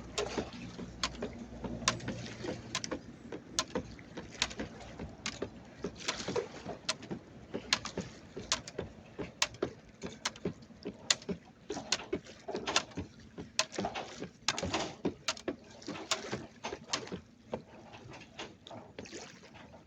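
A jump rope slapping the ground in a steady rhythm, a little more than one strike a second, over a background of moving water that swells louder now and then.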